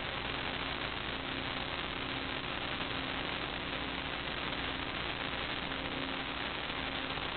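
Steady hiss with a faint low electrical hum: background noise on the sewer inspection camera's recording.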